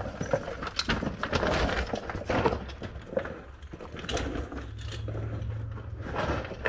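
Loose broken stone crunching and clattering under hands and feet as someone scrambles over a scree slope, in irregular knocks and clicks. A low steady hum sounds for about a second and a half past the middle.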